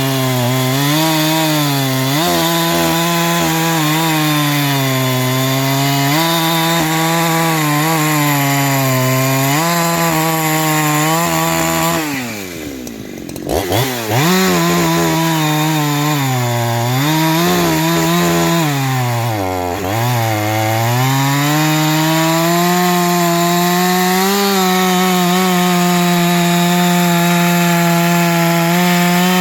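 Ported Husqvarna 372XP clone chainsaw sawing wood at full throttle, its pitch sagging again and again under load. About twelve seconds in the throttle is let off for a moment, then it revs back up and runs at a steady high pitch through the second half.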